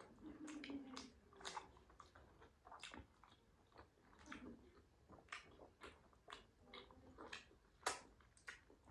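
Quiet close-up chewing and eating mouth sounds of people eating momos (dumplings): many short soft smacks and clicks, irregularly spaced, with one sharper click near the end.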